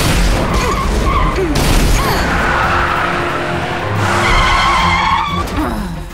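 Cartoon race-car sound effects: engines whining and tyres skidding as the cars race and drift, over background music.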